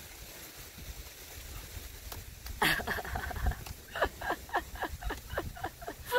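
A woman laughing: a run of short, falling 'ha' sounds starting a little over two seconds in and tailing off near the end, over a low wind rumble.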